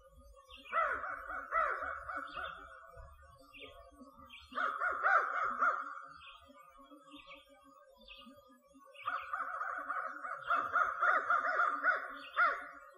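Crows cawing in three bouts of harsh, quickly repeated calls: one about a second in, another around five seconds in, and a longer run from about nine seconds to near the end.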